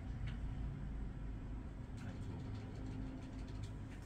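A steady low hum, with a few faint clicks over it.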